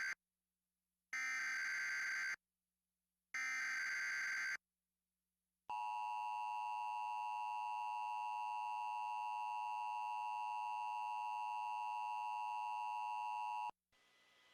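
Emergency Alert System SAME header: the tail of one data burst, then two more warbling digital bursts of about a second each. After a short pause comes the steady attention tone for about eight seconds, which stops abruptly. Together they mark the start of an emergency alert, here a tornado watch.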